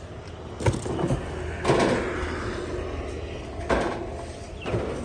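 Hand knocking and scraping against a perforated metal speaker grill: four short knocks, the second followed by a longer scrape, over a low steady hum.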